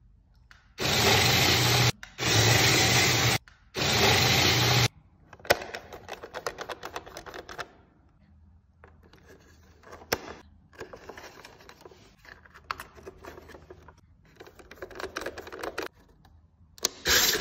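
A small electric motor whirs in three steady bursts of about a second each, then irregular clicking, scraping and rattling of a toy RC car's plastic chassis and screws being handled, and the motor whirs again near the end.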